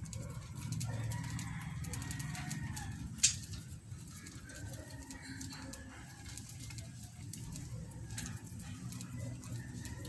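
Budgerigars chirping and chattering while they feed, over a low cooing, with scattered small clicks and one sharp click about three seconds in.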